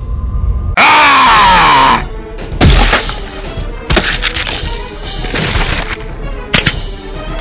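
Film sound effects over background music: a very loud, distorted cry about a second in that glides downward in pitch, then a series of sharp crash and impact hits, the loudest just after the cry.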